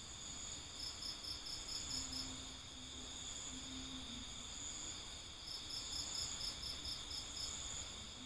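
Insects chirping: a steady high-pitched trill throughout, with two runs of quick, evenly spaced chirps at about five or six a second, about one second in and again past the middle.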